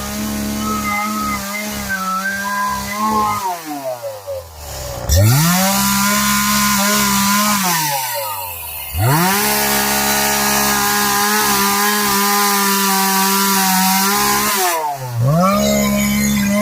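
CS-400 two-stroke chainsaw running at high revs, cutting up a pecan tree. Three times the throttle is let off and the engine note falls away, then it is opened up again.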